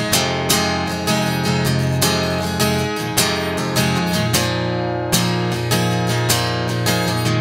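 Background music: a strummed acoustic guitar playing with a steady rhythm, about two strums a second.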